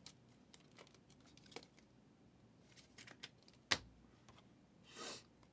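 Faint handling of trading cards and pack wrappers: scattered light clicks and rustles, with one sharper click a little past the middle and a brief soft swish near the end.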